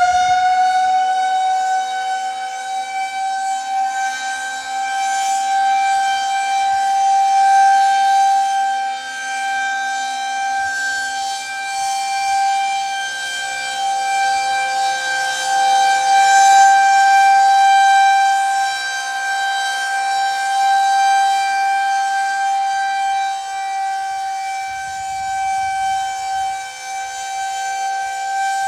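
Federal Signal 2001-130 outdoor warning siren sounding its steady Alert signal for a tornado siren test. It holds one steady, high wail, swelling and fading in loudness every several seconds.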